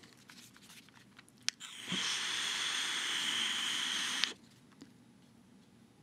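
DotAIO Lite pod mod being drawn on. A click about a second and a half in, then about three seconds of air rushing through the device's airflow with a steady high whistle, cutting off suddenly.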